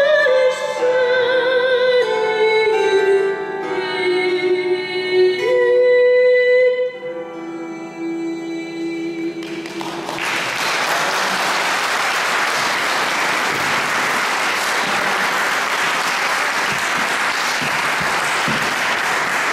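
A woman sings the closing phrase of a song, her voice falling to a long held final note, accompanied by a bandura (Ukrainian plucked string instrument). About ten seconds in, the song ends and audience applause takes over, continuing steadily to the end.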